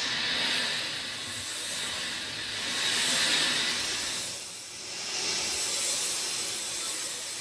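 Rain falling, a steady hissing wash that swells and eases every few seconds.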